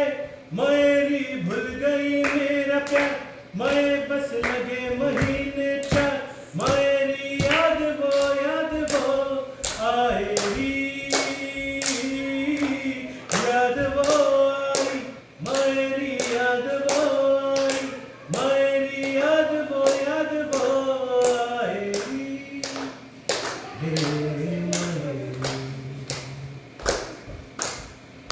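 A few people singing a Hindi song together, with steady hand claps keeping the beat about twice a second. A lower voice joins in near the end.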